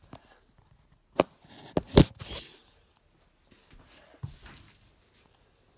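Handling noise as the camera is picked up and carried: a few sharp knocks and rustles between about one and two and a half seconds in, the loudest near two seconds, then faint scuffing.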